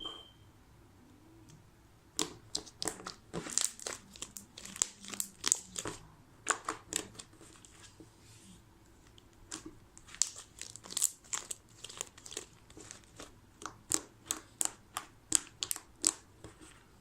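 Fluffy slime made from glue, shaving cream and detergent activator being squeezed and stretched by hand, crackling with rapid sharp pops. The pops come in two runs with a short lull between.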